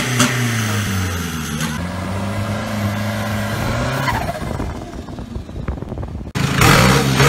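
Turbocharged diesel engine of a longtail racing boat running hard at high revs, its pitch wavering up and down. About six seconds in the sound cuts abruptly to a louder engine revving with rising pitch.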